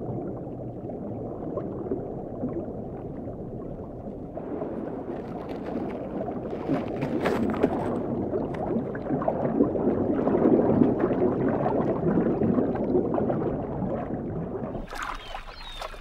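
Muffled underwater rush and swirl of water, swelling to its loudest a little past the middle and then easing off, with a few faint crackles along the way.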